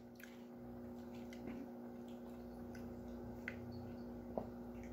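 Quiet room tone: a steady low electrical hum with a few faint, short ticks.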